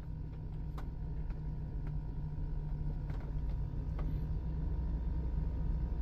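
Chevrolet Tahoe V8 engine idling steadily, a low rumble heard from inside the cabin, with faint clicks about once a second. The engine is running on its just-repaired, rodent-chewed wiring harness.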